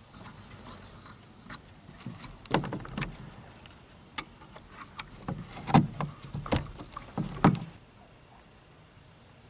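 A series of irregular knocks and clunks, a handful of sharp ones between about two and a half and eight seconds in, over a faint steady background.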